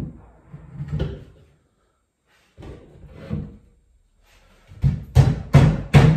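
Knocks and thumps of IKEA BRIMNES bed-frame panels as the long side rail is handled and fitted against the frame. A few scattered knocks come first, then a quick run of louder knocks in the last second and a half.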